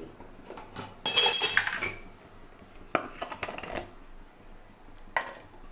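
Stainless-steel bowl and mixer-grinder jar clattering and clinking as mango pieces are tipped into the jar, with a ringing metallic rattle about a second in, then a few sharp knocks.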